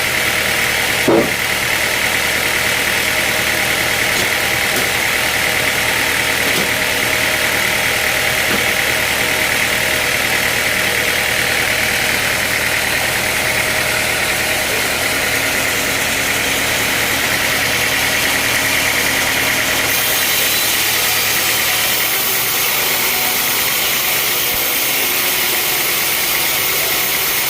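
Sawmill machinery running steadily, with a short knock about a second in.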